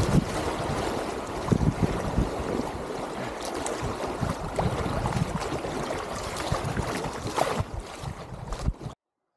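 Shallow river water rushing and splashing around a packraft running a rocky riffle, a steady noisy wash with irregular low rumbles; it cuts off abruptly near the end.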